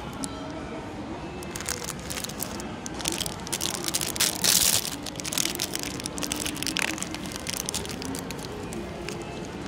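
Crinkling and rustling of clear plastic wrappers as small bagged toy figures are handled and shuffled by hand, with a louder burst of crinkling about halfway through.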